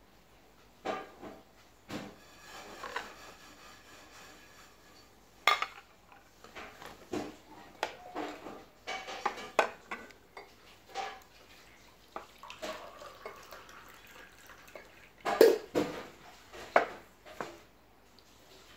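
Dal being served: a metal ladle clinking and scraping against the pot and a white dinnerware bowl, with plates and bowls knocking as they are moved, in irregular clinks; the loudest clatter comes about 15 seconds in.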